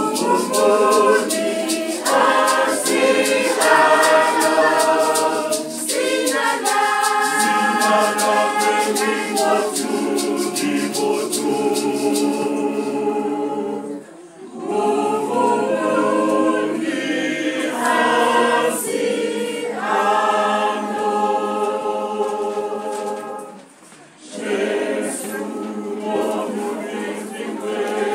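Choir of mainly women's voices singing, with a hand rattle shaken in a quick steady beat for about the first twelve seconds. After the rattle stops the singing goes on unaccompanied, with short breaks between phrases about fourteen and twenty-four seconds in.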